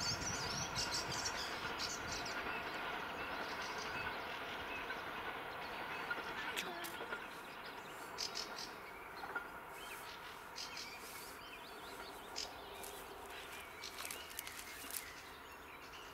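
Distant passenger train rolling away along the track, its noise slowly fading, with birds chirping over it.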